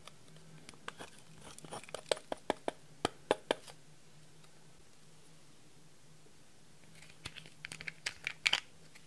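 Pressed powder makeup being crushed and scraped out of a plastic compact with a metal tool: a run of sharp clicks and crunches, then a pause. Near the end a second cluster of small plastic clicks as a lip gloss tube is handled.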